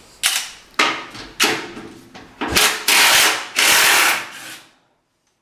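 Tool noise on fasteners: four short rasping bursts, then two longer loud ones, each cutting off sharply, as the inner fender wheel wells are unbolted from the car.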